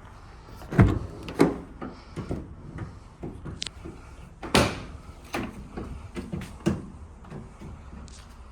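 Doors of a Ford Transit van being worked: a string of clunks and latch clicks, the loudest about a second in and again about halfway through.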